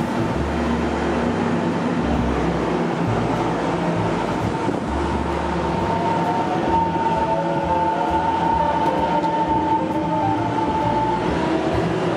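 Taiwan Railways EMU700 electric multiple unit pulling out of a station, its cars rolling past close by, with a steady electric motor whine that grows stronger about halfway through.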